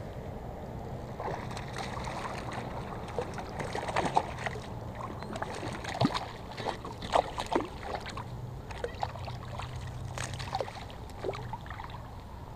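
Hooked fish thrashing at the water's surface: a run of irregular sharp splashes, loudest in the middle.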